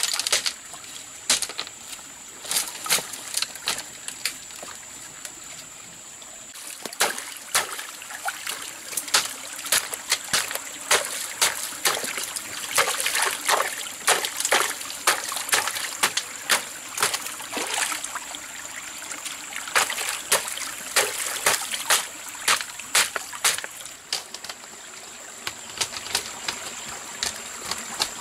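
Water splashing and trickling, with many short, sharp splashes at irregular intervals.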